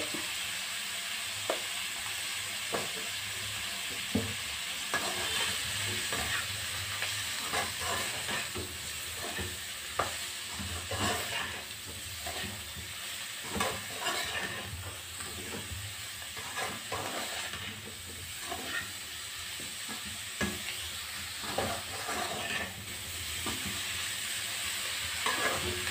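Cauliflower florets frying in a metal pan with a steady sizzle, while a perforated steel skimmer stirs them and scrapes and clinks irregularly against the pan.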